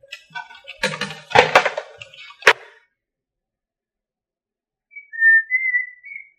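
A quick clatter of knocks and clicks ending in one sharp knock, then, after a pause, a short whistle rising slightly in pitch near the end.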